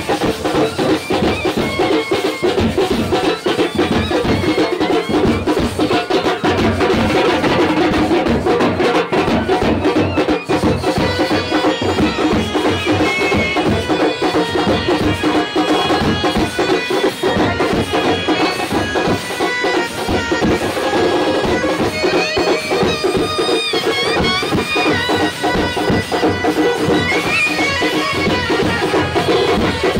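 Street procession band playing loud, continuous drumming under a wavering, reedy melody line.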